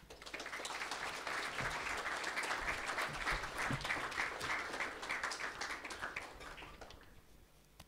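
An audience clapping, the applause fading away over the last couple of seconds.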